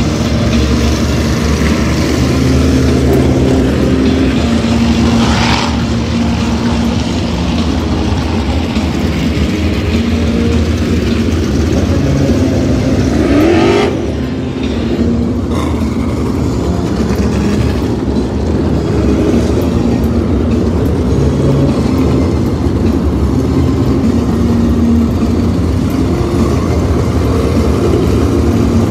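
Several winged sprint cars' V8 engines running together at low speed as the field circles the dirt track on pace laps before the start. A car revs up about five seconds in and again about thirteen seconds in.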